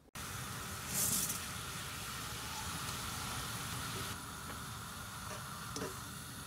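Thin somyeon noodles boiling hard in a pan of water on a gas stove: a steady bubbling hiss, with a brief louder hiss about a second in. A few light clicks of metal tongs against the pan come near the end.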